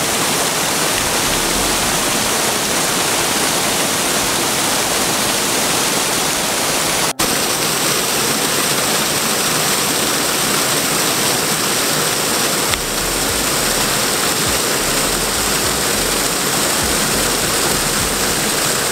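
Waterfall pouring into a rocky river pool: a loud, steady rush of falling water, broken by a brief dropout about seven seconds in.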